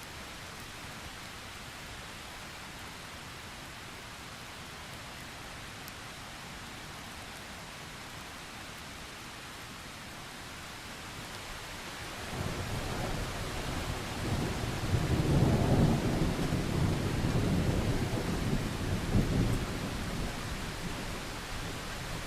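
Thunderstorm: steady heavy rain, then a long low roll of thunder that builds about twelve seconds in, swells and rumbles on through the rest.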